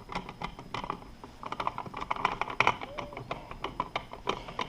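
Irregular small clicks and taps of a screwdriver and a rocker wall switch being handled as the switch is turned right side up and screwed back into its box.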